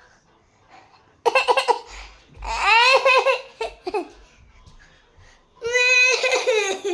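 Oggy the cartoon cat crying: exaggerated high-pitched sobbing wails in three bursts, the pitch wobbling and falling, the last and longest starting about halfway through.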